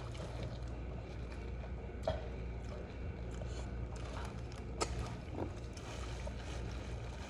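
Chewing and eating sounds with a few short, sharp mouth smacks or clicks, over a steady low hum.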